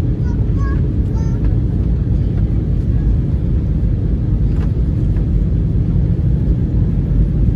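Steady airliner cabin noise in flight: an even, loud rumble of jet engines and airflow, with a faint voice in the first second.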